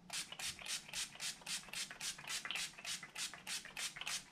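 Spray bottle of water misting onto the face in a quick run of short hissing sprays, about four a second.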